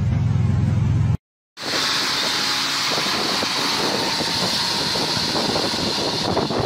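Heavy truck engine running steadily. After a sudden cut about a second in, a dump truck straining with its wheels spinning in deep mud, under a steady high hiss.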